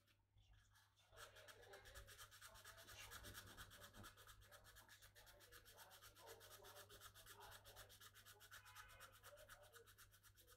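Fast, even back-and-forth abrasive rubbing strokes on bamboo root as it is shaped by hand for a hulusi. The strokes start about a second in.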